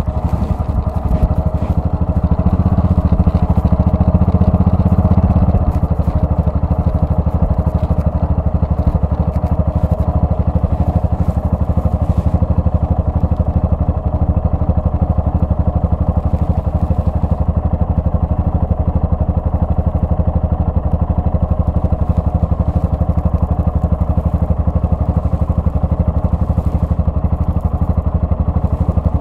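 Yamaha XT660R's 660 cc single-cylinder four-stroke engine running steadily while being ridden, a little louder for the first five seconds or so.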